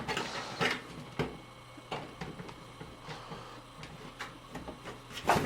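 Thin aluminium PC case side panel being forced and pried at, giving scattered light clicks, knocks and rattles of the flimsy sheet metal, with a louder clatter right at the end as it starts to give.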